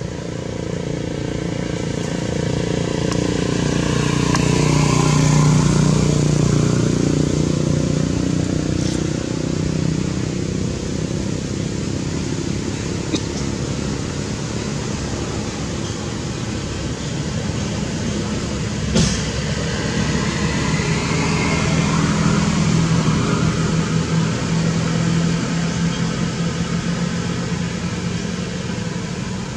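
Motor vehicle engines passing by: a steady low engine hum that swells and fades twice, about five seconds in and again around twenty-two seconds. A few sharp clicks stand out, the loudest about nineteen seconds in.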